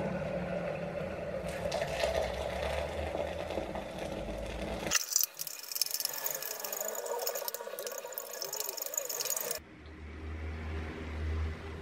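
Hot water poured from an electric kettle into a glass Pyrex measuring jug. It is followed by a spoon stirring and clinking in the jug to dissolve the jelly crystals and gelatine, and then by the liquid being poured into silicone cupcake cases.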